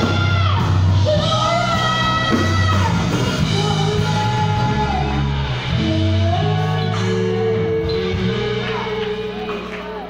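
Live gospel worship song: a woman's voice singing long, gliding notes over a band's keyboard, bass and drums.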